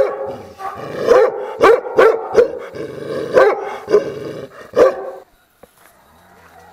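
Dog barking repeatedly, about eight loud, sharp barks, stopping about five seconds in.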